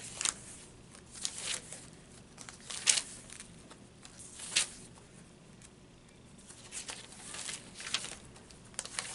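Paper rustling as journal pages are handled and turned, in scattered short rustles about a second or two apart.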